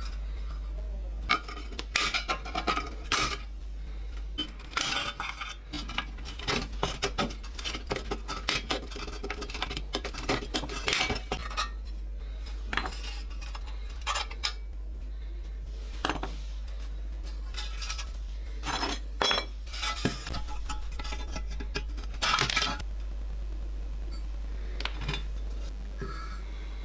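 Pressed-steel toy parts clinking, knocking and scraping irregularly as they are handled, busiest in the first half, over a steady low hum.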